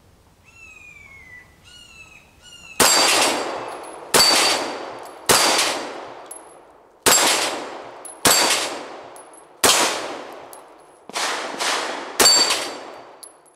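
Eight .45 ACP shots from a Ruger American Pistol, about one to two seconds apart, each with a long echo and a high metallic ring from the steel knock-down plates being hit.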